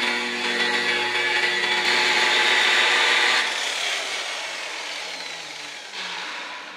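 DeWalt variable-speed polisher with a black foam pad running at about 1200 RPM, buffing compound on a car's clear-coated quarter panel. About three and a half seconds in it is switched off and winds down, fading away.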